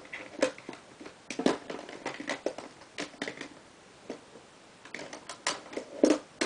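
Small cosmetic items and packaging being rummaged through and handled: irregular clicks, taps and knocks, with a louder knock near the end.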